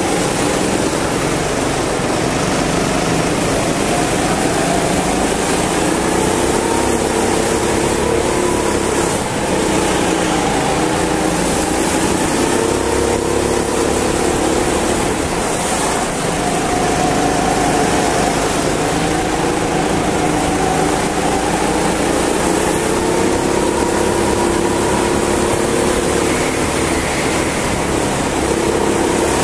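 Go-kart engine running hard on the kart carrying the camera, its pitch rising and falling every few seconds as it lifts for corners and accelerates out. A steady hiss of wind and tyre noise runs under it.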